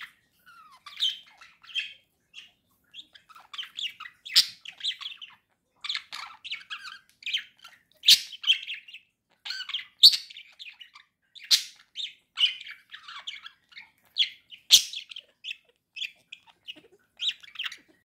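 Budgerigar warbling: a fast, unbroken run of short chirps and chattering notes, with a few sharper clicks mixed in.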